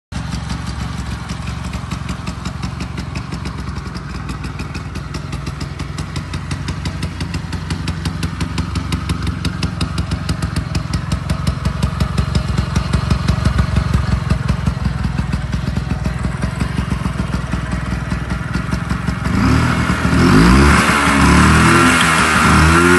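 Vintage Vespa scooter's single-cylinder two-stroke engine idling with a fast, even firing beat. About twenty seconds in it gets louder and the note swings up and down as the engine is revved.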